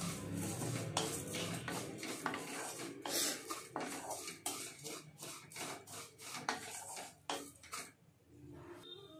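Irregular clicks, knocks and scraping of hard objects being handled, with a brief lull about eight seconds in.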